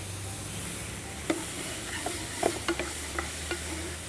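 Finely chopped button mushrooms sizzling in a non-stick frying pan while a spatula stirs them, scraping and tapping against the pan in a series of sharp ticks from about a second in.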